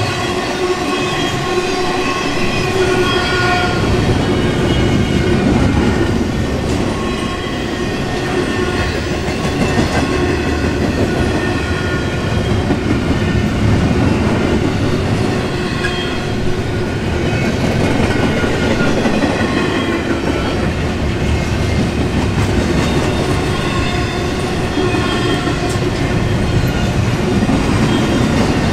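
Double-stack intermodal freight cars rolling steadily past close by: a continuous rumble and clatter of steel wheels on rail. High steady tones come and go over it.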